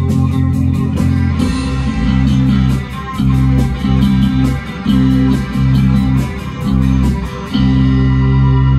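Rock band playing in a small room: electric guitar and bass over a drum kit with steady cymbal hits. Midway the band plays a run of stop-start chord stabs, then the drums stop about seven and a half seconds in and a long chord is left ringing.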